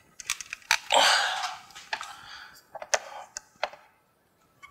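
Sharp plastic clicks, several over a few seconds, with a scraping rub about a second in, as the 2015 Acura TLX's honeycomb grille is pressed into the bumper cover to seat its edge on the lip.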